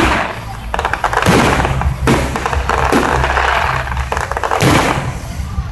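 Fireworks going off: several sharp bangs a second or more apart, with crackling in between.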